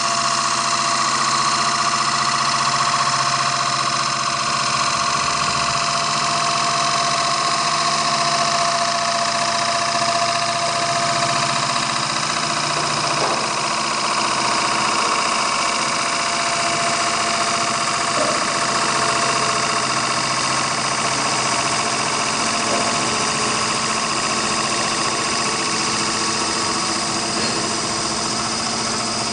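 CNC automatic wood lathe running: a steady machine whine of several even tones over a constant hiss.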